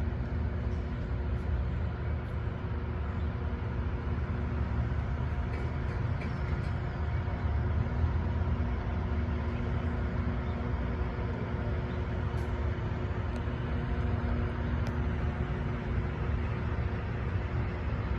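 Loram rail grinder running, a steady low diesel-engine drone with a constant hum of machinery over it.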